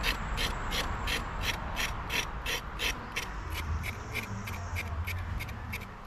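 Kitchen knife scraping the skin off a raw carrot in quick, even strokes, about three a second.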